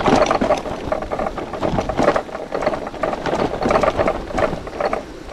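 Loaded bicycle being ridden over bumpy grass: irregular rattling and clicking from the bike and its bags, over steady tyre noise.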